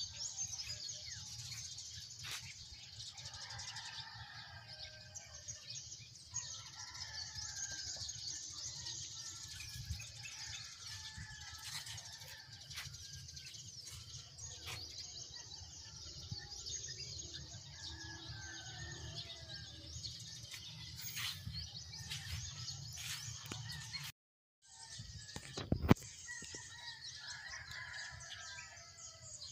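Birds chirping and calling over a steady high hiss and a low rumble. The sound cuts out completely for a moment about three-quarters through, and a sharp knock follows just after.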